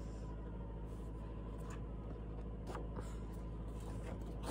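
A sheet of paper handled in the hands, rustling faintly a couple of times, over a steady low hum.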